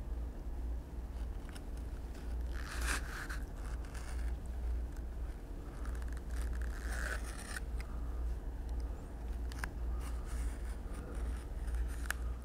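Craft knife cutting through stout leather, trimming a holster's lining flush with the edge: quiet scraping strokes, the loudest about three and seven seconds in, over a steady low hum.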